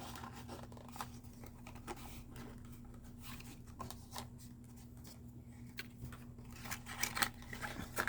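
Faint clicks and light scraping of small diecast model cars being handled and turned over, over a steady low hum. The clicks come more often near the end.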